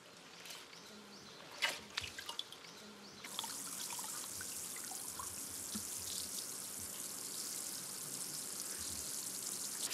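Wet sand being stirred and rinsed by hand in water in a large aluminium pot: faint sloshing with a couple of sharp knocks. About three seconds in, a steady hiss of running water takes over.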